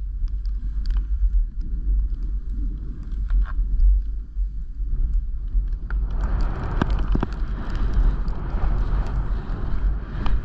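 Wind rumbling on a GoPro's microphone during a downhill run through snow, with the hiss of snow sliding beneath the rider. About six seconds in the hiss gets louder and fuller as the run goes into deep powder.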